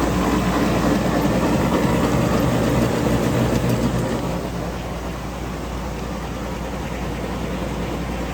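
Tractor engine running steadily, driving a grinder-mixer's unloading auger as the last of the ground feed empties out. The sound eases a little about four seconds in.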